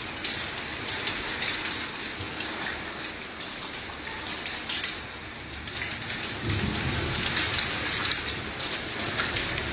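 Heavy, wind-driven rain pouring down in a storm, an even rushing hiss with gusty flickers, joined about six and a half seconds in by a low rumble.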